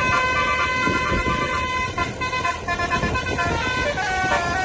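Indonesian tour bus's basuri (telolet) musical horn playing a tune: several pitches sound together and step from note to note without a break.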